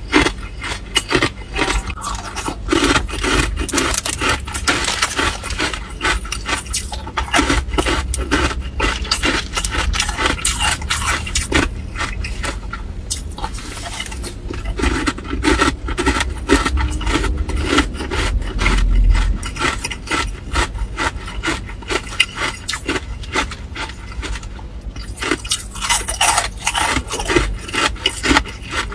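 A person chewing and crunching mouthfuls of hard ice cubes close to the microphone: a dense, continuous run of crisp cracks and crunches, with the plastic bag of ice rustling and cubes clinking as more are picked out.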